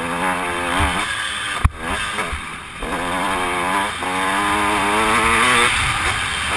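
Dirt bike engine revving up and down with the throttle, heard from the rider's helmet, with wind noise over it. A sharp knock comes just under two seconds in. The engine then eases off briefly and pulls hard again.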